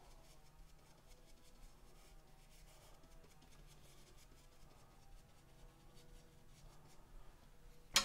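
Faint scratchy brushing of a stiff-bristled blending brush dabbing and stroking over an acrylic-painted canvas, over a low steady room hum. A single sharp click near the end.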